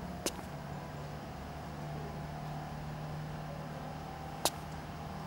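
Street ambience: a steady background of city traffic with a low hum, broken twice by a sharp click, once just after the start and once near the end.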